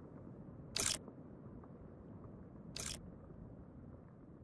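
Two short, sharp swish-like hits about two seconds apart over a quiet low rumbling background: sound effects that go with the title and sponsor logos coming up.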